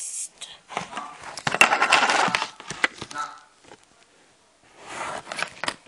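Handling noise: scattered knocks and clicks with a loud stretch of rustling and scraping about a second and a half in, then another short burst of rustling and clicks near the end.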